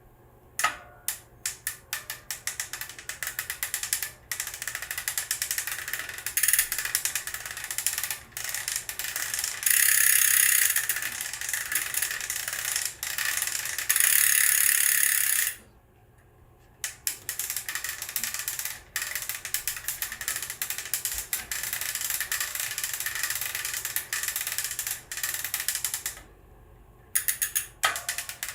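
Vision Metron 55 rear wheel freewheeling: the freehub's pawls ratchet in a fast buzz of clicks that slows into separate clicks as the wheel winds down, several times over. The owner takes this freewheeling noise for an abnormal one.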